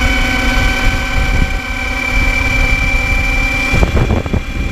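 Zero MX electric motorcycle under way at speed: its electric drive gives a steady high-pitched whine over a low rumble. A few short knocks come about four seconds in.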